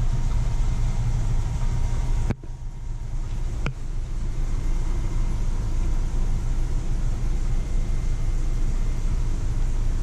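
A steady low rumble. It drops off suddenly about two and a half seconds in, swells back over the next second, and a single sharp click comes just before four seconds in.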